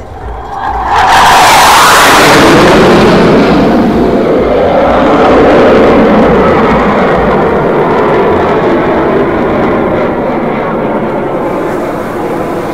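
Hawk Mk 132 jet trainer flying past overhead. A loud jet roar comes in suddenly about a second in with a bright hiss, then drops in pitch and slowly fades.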